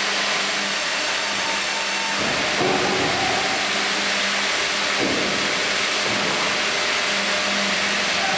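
Sawmill machinery running steadily: a tandem band saw line and a hydraulic log carriage, with a steady hum throughout and a low rumble from about two to five seconds in as the carriage travels along its rails.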